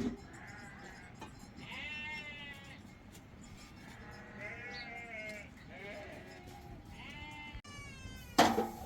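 Sheep bleating, about four wavering calls a second or so apart, with a louder noisy burst near the end.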